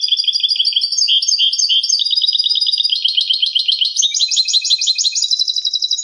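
European goldfinch singing one long, unbroken song of rapid, high twittering notes and trills, a 'cante limpio' (clean song) recorded with no background noise.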